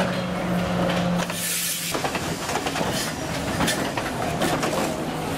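Sri Lanka Railways Class S12 diesel multiple unit pulling into a station close by: a steady engine drone, a short hiss about a second and a half in, then the clicking and rumble of its carriages rolling past.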